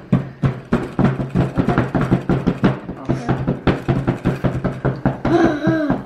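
Rapid repeated tapping and scraping of a small hand digging tool chipping at a dried clay treasure block, about three strikes a second.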